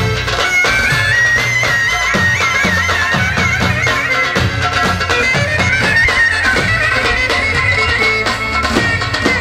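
Loud Romani folk dance music: a reedy, ornamented wind melody over a steady drum beat.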